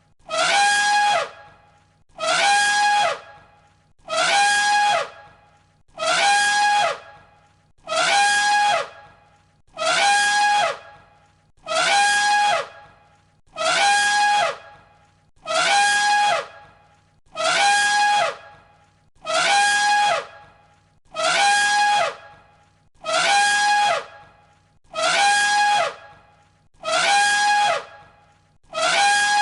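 An elephant trumpeting, the same single call looped over and over, about every two seconds. Each blast is a shrill, brassy note about a second long that holds its pitch and then drops away at the end.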